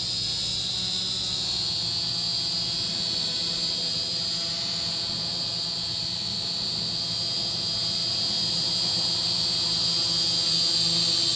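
Snaptain SP600 quadcopter in flight, its motors and propellers giving a steady high-pitched buzzing whine that grows a little louder near the end.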